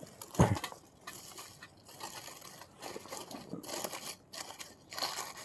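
Dry leaves and forest litter crunching and crackling in several short bursts as they are pushed by hand into a metal twig stove, with a sharp thump about half a second in.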